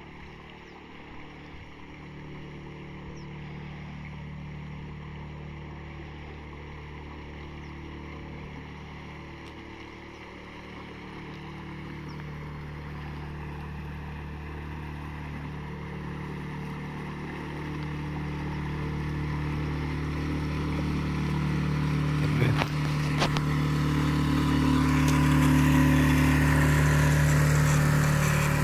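Small outboard motor on a sailing yacht running steadily, getting louder as the boat comes close. A couple of sharp knocks about two-thirds of the way through.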